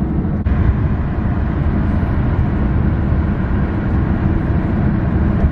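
Steady road and engine noise inside a moving car's cabin at motorway speed, a continuous low rumble.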